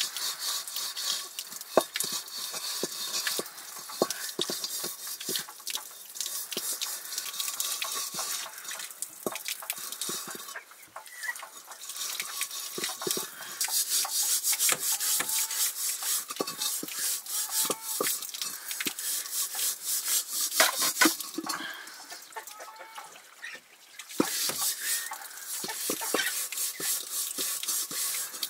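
Pot being stirred on the cook fire: a hiss that swells and fades, with clinks and knocks of the utensil. Hens cluck now and then over it.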